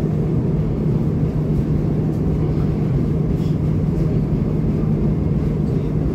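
Steady rumble and low hum of a SEPTA Market-Frankford Line train heard from inside the car as it rolls slowly past a station platform.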